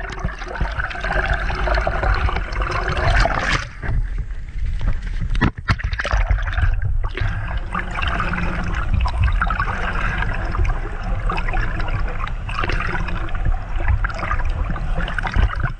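Water churning and bubbling around a camera held underwater: a steady rushing noise with a deep rumble and crackling bubbles, broken by a few brief knocks and dropouts around four to six seconds in.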